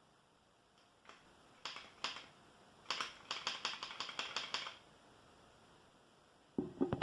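Plastic LEGO parts of a LEGO minigun model clicking: a few separate clicks, then a quick run of about seven clicks a second for under two seconds, and a short lower rattle near the end.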